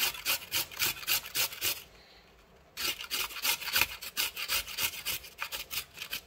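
Baby carrot grated on a stainless-steel hand grater: fast rasping strokes, about five a second, stopping for about a second near a third of the way in, then starting again.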